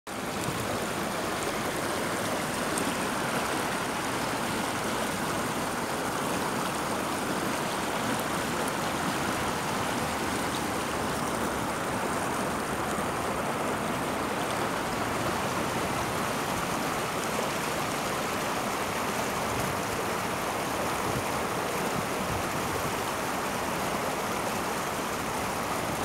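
Shallow stream water flowing and rippling, a steady, even rush of water.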